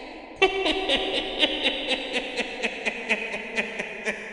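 Witch's cackle sound effect: a voice laughing in a rapid run of repeated 'ha' pulses, about five a second. It starts about half a second in and slowly trails off.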